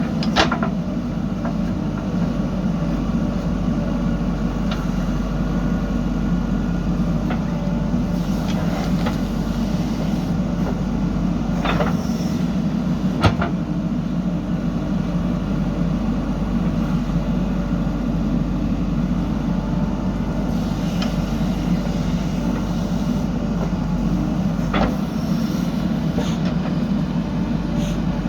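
JCB backhoe loader's diesel engine running steadily under work, with a few short sharp clanks from the digging and loading.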